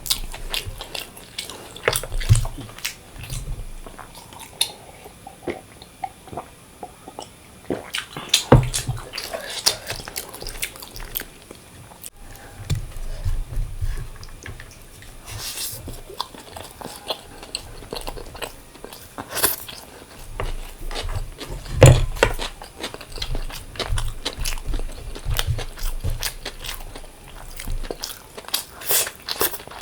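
Close-miked eating: chewing and biting of food, with many short wet mouth clicks and smacks and a few louder thuds.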